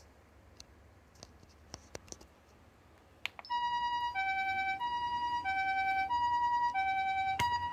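A few clicks, then an Osaka Siren MK-10 siren amplifier sounds the Japanese ambulance two-tone 'pee-poh' siren from about three and a half seconds in. It alternates a higher and a lower steady tone about every two-thirds of a second, and it starts at full level with its fade-in switched off.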